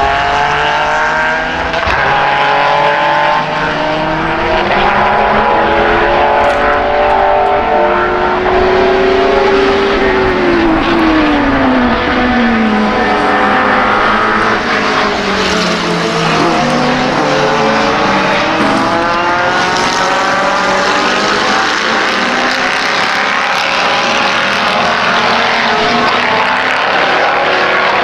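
The engines of several sports racing cars at full throttle, their notes climbing and dropping as they change gear and overlapping as the pack approaches. One engine note falls steeply about ten seconds in.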